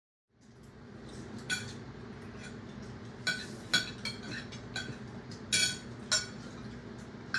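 Cutlery and dishes clinking: about eight sharp, ringing clinks at uneven intervals over a low steady hum.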